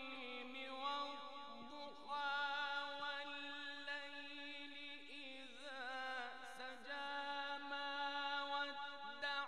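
A male Quran reciter (qari) chanting in the melodic tajweed style, holding long drawn-out notes. About five and a half seconds in he sings a wavering, ornamented turn before settling on another held note.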